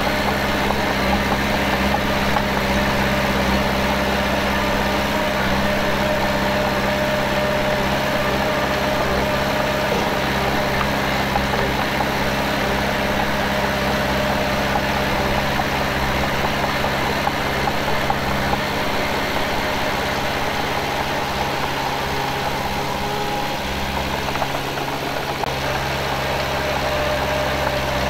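Heavy-equipment diesel engine running steadily, with a fainter steady whine above the drone.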